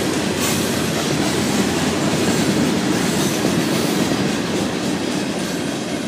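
Freight train of loaded rock hopper cars rolling past close by: a steady, loud rumble of steel wheels on the rails.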